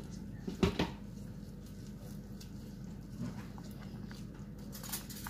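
Cooked corn kernels being rubbed off the cob by hand, with faint rustling and small ticks as the kernels drop into the container. Two sharp knocks come close together less than a second in, over a steady low hum.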